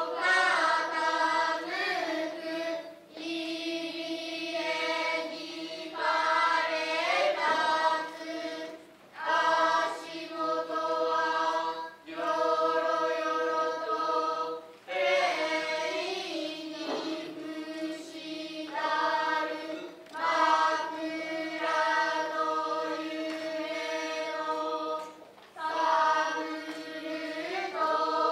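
Children's Noh chorus (jiutai) chanting utai in unison to accompany a shimai dance: long held notes with slowly wavering pitch, broken by short breaths every few seconds.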